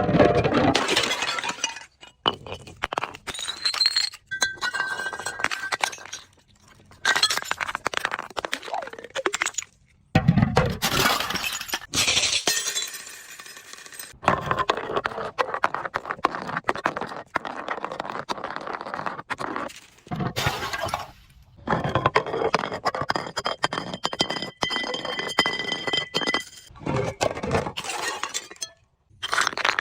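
Glass bottles breaking and being crushed: many sharp cracks and crunches with shards clinking together, separated by short pauses. In the later part some glass pieces ring briefly as they break.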